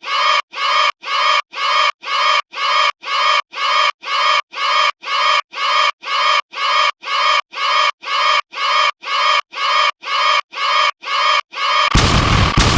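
The same short sound effect, played over and over about twice a second with every repeat identical. About twelve seconds in it gives way to a denser, noisier sound broken by sharp, evenly spaced cracks.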